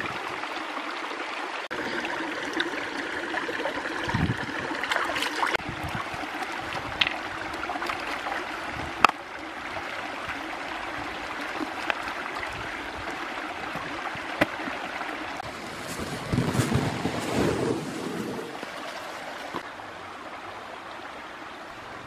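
Shallow rocky stream running and trickling over stones, with a spell of louder splashing late on as feet move in the water.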